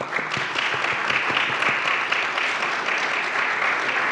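A roomful of people applauding. The clapping swells in at the start and then holds steady.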